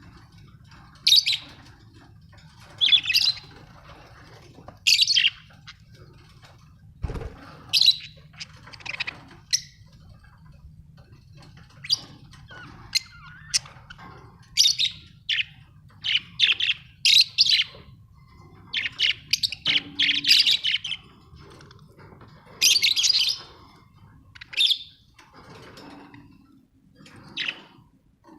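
Budgerigars (budgies) chirping in short, bright calls that come irregularly throughout, over a steady low hum, with one dull thump about seven seconds in.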